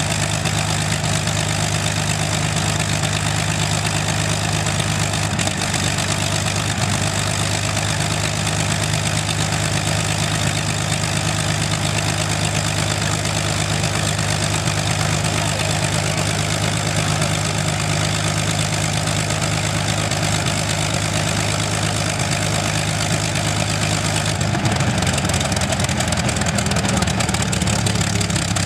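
Rolls-Royce Merlin 27-litre V12 aero engine running steadily at low speed on a ground-run stand, its propeller turning. About 24 seconds in the engine note rises slightly and gets a little louder.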